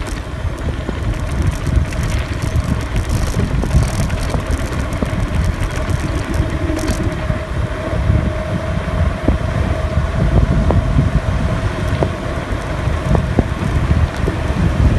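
Wind buffeting a phone's microphone while riding along a road, a steady low rumble mixed with tyre noise on the asphalt. A faint steady whine sits under it through the middle of the ride.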